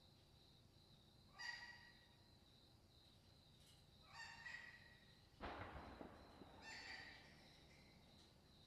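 Fruit bats in a roosting cluster giving three short squawking calls, with a brief scuffling rustle between the second and third. A faint steady high-pitched tone runs underneath.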